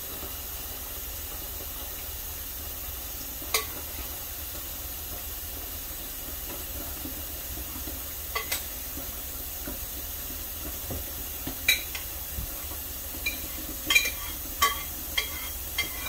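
A utensil knocking and scraping against a heavy mixing bowl as a soggy egg-and-bread mixture is emptied out of it. There are a few sharp clicks at first, then a quicker run of knocks in the last few seconds, over a steady background hum.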